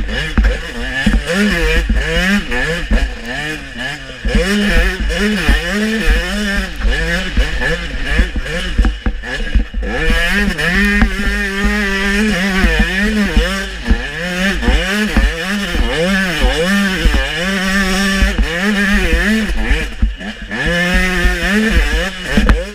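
Dirt bike engine revving hard, over and over: the pitch climbs through each gear, drops at the shift and falls away under braking, with wind buffeting the mic.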